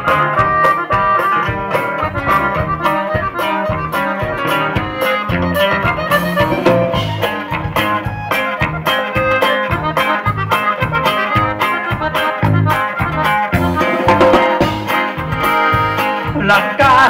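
Live norteño band playing an instrumental passage: an accordion melody and guitars over an even bass-and-drum dance beat.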